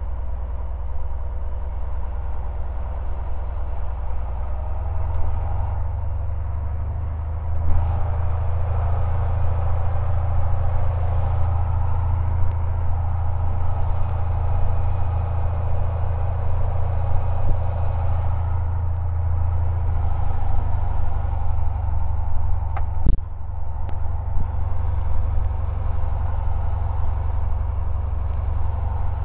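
Cessna 180's 230-horsepower Continental O-470 six-cylinder engine and propeller running at low power, heard from inside the cabin while the plane taxis after a warm start. The engine note grows louder a few seconds in and eases back later on, with a single sharp click near the end.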